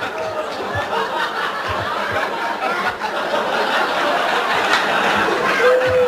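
Audience laughing, many people chuckling and laughing at once.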